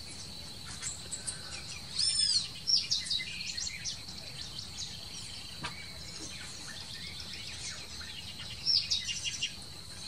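Wild birds calling: short chirps and louder arched, whistled calls, strongest about two seconds in and again near the end, over a steady high insect drone.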